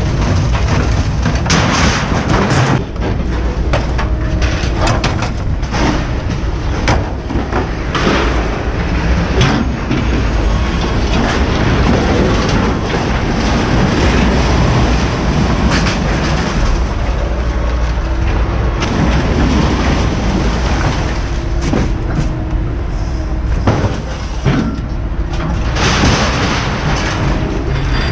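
Scrap metal and old appliances clanging and crashing as they are thrown onto a scrap pile: a long string of irregular metal impacts over a steady low rumble.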